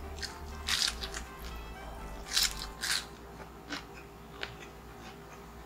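Close-miked crunching bites into crispy chicharong bulaklak (deep-fried pork mesentery), with three loud crackly crunches in the first three seconds and smaller ones after, over soft background music.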